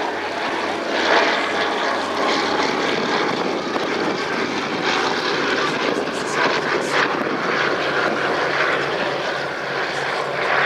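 The two radial piston engines and propellers of a Consolidated PBY-5A Catalina flying boat in flight, a steady drone with a pulsing low beat underneath.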